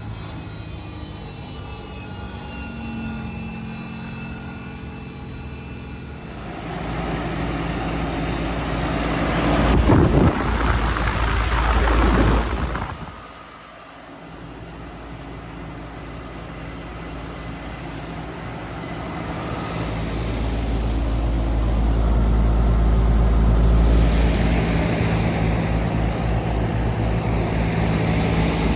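Outdoor heat pump units running with a steady hum, while a loud rushing rumble builds about six seconds in, cuts off suddenly near the middle, then slowly builds again.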